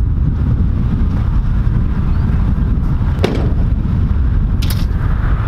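Car on the move: a steady low road and engine rumble, with a sharp knock about three seconds in and another near the end.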